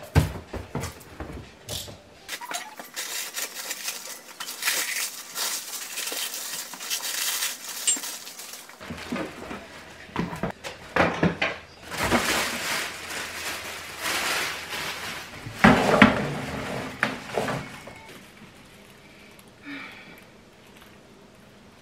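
Dishes and cookware being unpacked from a moving box and put away: plastic wrapping and bubble wrap rustling, crockery and pots clinking and clattering, with a burst of loud clatters about 16 seconds in.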